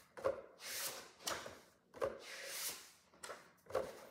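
Paper rustling as notes are handled and leafed through: several soft swishes in a row with short gaps between them.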